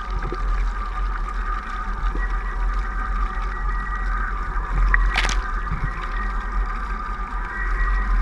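Water rushing and spraying past a windfoil's hydrofoil mast as the board flies over choppy sea, with heavy wind buffeting on the microphone and a steady high hum. A sharp splash about five seconds in.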